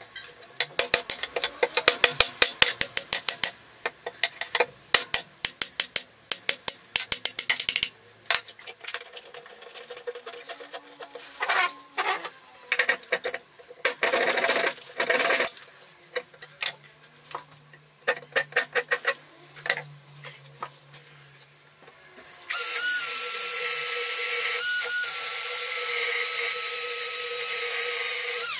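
Quick repeated strokes of a hand tool shaving wood, then slower saw strokes cutting off the wooden wedge in the axe head's eye. About 22 seconds in, an electric drill fitted with a sanding pad starts and runs with a steady whine.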